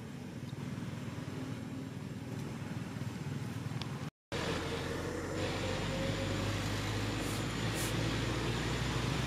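Steady low rumble of a motor vehicle, with a faint, slowly rising tone in the second half. The sound cuts out for a moment about four seconds in.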